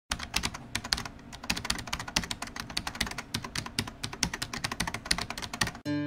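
Rapid typing on a computer keyboard: a dense run of key clicks, several a second, that stops abruptly near the end as plucked guitar music begins.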